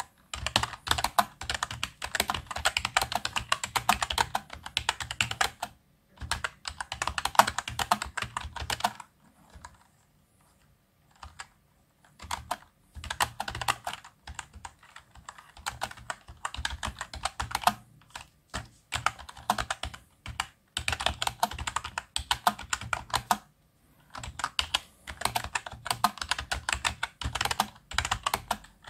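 Touch typing at about 37 words a minute on a computer keyboard: runs of rapid key clicks broken by short pauses, with a longer near-quiet gap about nine seconds in.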